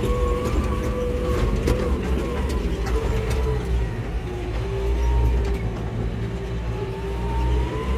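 JCB telehandler's diesel engine running, heard from inside the cab: a steady low rumble with a whine that drops in pitch about halfway through and rises again near the end. A few sharp rattles or clicks in the first few seconds.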